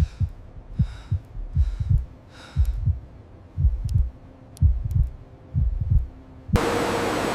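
Heartbeat sound effect: deep paired lub-dub thumps, about one beat a second, with faint breathy hiss over the first few beats. Near the end it cuts abruptly to a loud steady rushing noise with a hum.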